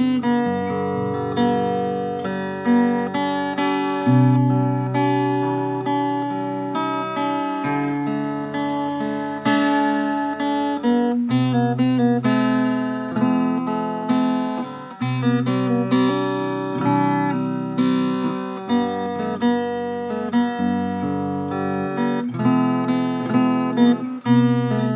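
Background music on acoustic guitar: plucked notes and chords that strike and ring out one after another.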